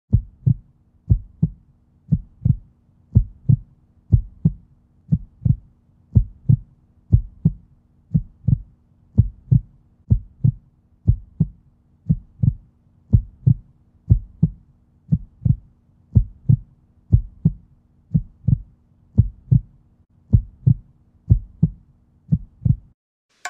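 A slow, steady heartbeat rhythm: pairs of low thumps, about one pair a second, over a faint steady low hum. The thumps stop shortly before the end.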